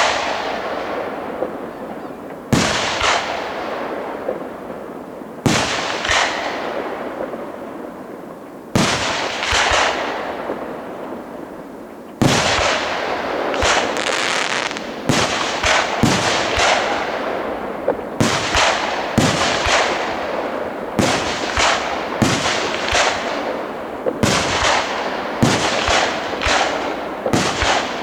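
Fireworks display: aerial shells bursting with sharp bangs, each trailing off in a long fading tail. Single bursts come every few seconds at first, then about halfway through they give way to a rapid barrage of one or two bursts a second.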